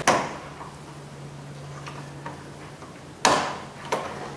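Screwdriver prying at the metal retaining clip on the plastic hood-release handle: a few light ticks, then two sharp clicks, one a little over three seconds in and another just before four.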